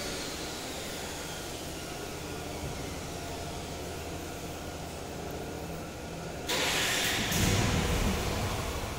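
Steady low hum of machinery in a factory hall, with a faint falling whine early on. About six and a half seconds in a loud hiss starts suddenly, and a heavier low rumble follows it, the loudest part.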